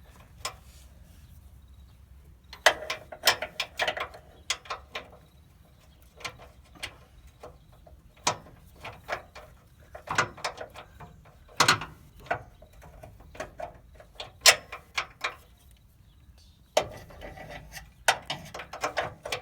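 Socket ratchet wrench clicking in short runs of sharp clicks, with pauses between runs, as it is worked back and forth on a tight camber bolt nut.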